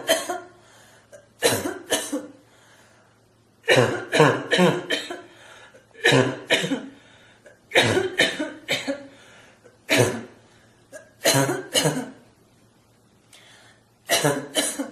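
A person giving forced, barking coughs, some single and some in quick runs of two to four, with short pauses between them.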